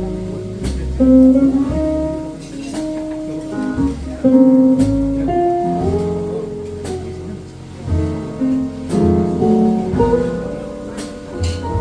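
A jazz quartet of electric guitar, piano, bass and drums playing live, with the guitar to the fore over bass notes and light cymbal strokes.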